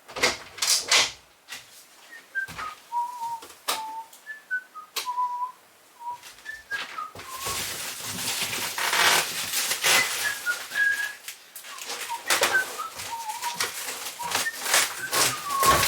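A whistled tune of short stepping notes, over repeated clicks and knocks, with a steady hiss joining about halfway through.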